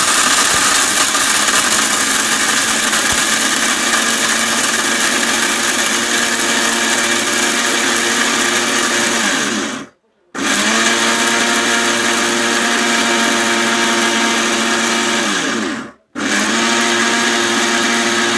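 Havells 800-watt mixer grinder running at full speed, grinding dry turmeric pieces into powder in its small steel jar. Twice, about ten seconds in and again about sixteen seconds in, the motor falls in pitch as it winds down, stops for a moment, and starts straight back up.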